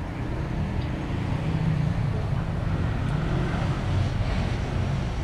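Steady low rumble with an even hiss above it, with no single distinct event.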